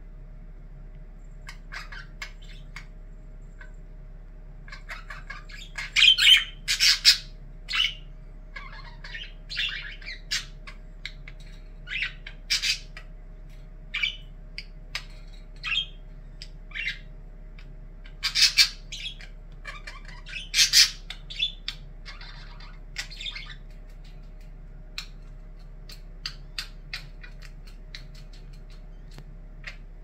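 Pet budgerigar calling in short, irregular chirps and squawks, with the loudest calls in two clusters, about a fifth of the way in and again a little past the middle.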